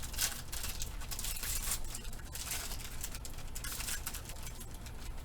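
A Panini Prizm basketball card pack's wrapper crinkling and tearing open by hand, with cards being handled, in a run of irregular crackles and rustles.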